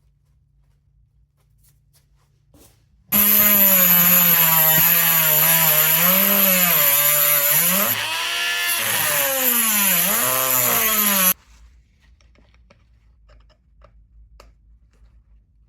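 Small electric power tool running for about eight seconds, starting and cutting off abruptly. Its motor pitch dips and recovers several times while it runs.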